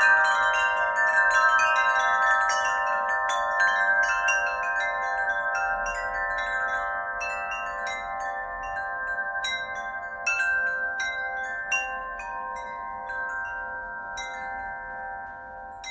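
Wind chime ringing: repeated light strikes set off many overlapping, long-ringing tones. The strikes grow sparser and the ringing slowly dies away toward the end.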